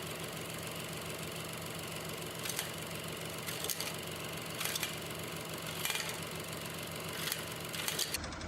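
Scroll saw running steadily. Roughly every second a sharp clatter sounds as the MDF workpiece jumps and slaps against the table. The piece is held loosely by its edges instead of pressed down, so the blade lifts it.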